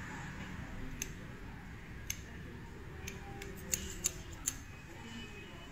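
Barber's scissors snipping beard hair trimmed over a comb: about six short, crisp snips, roughly a second apart at first, then three quicker ones about four seconds in.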